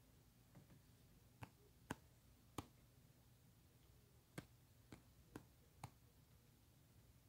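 Faint, sharp taps on a phone's touchscreen while drawing: about eight irregular clicks over near-silent room tone.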